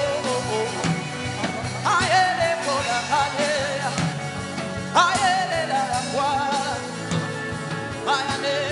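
Worship music with a steady drum beat under a voice in long, bending phrases that start about every three seconds.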